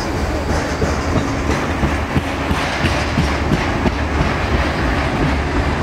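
Freight train of autorack cars rolling past: a steady low rumble with the wheels clacking and knocking irregularly over the rails.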